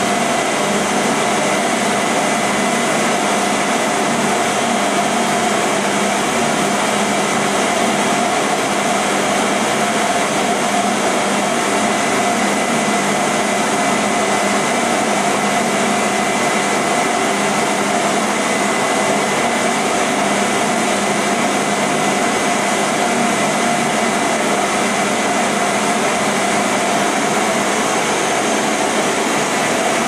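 Vacuum cleaner running steadily: a constant rush of air with a steady whine over it, unchanging in pitch and loudness.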